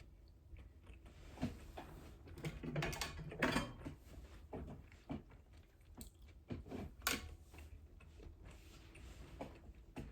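Close-miked chewing and biting of food: irregular crunchy clicks and short wet bursts, loudest in a cluster a little after two seconds in, with single sharp clicks before and after.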